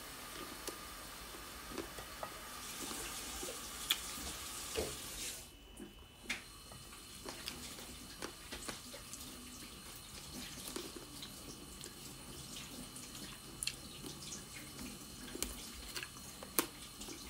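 Close mouth sounds of eating chicken feet by hand: sucking, lip smacks and many small clicks from chewing. A steady hiss runs under the first five seconds or so and stops suddenly.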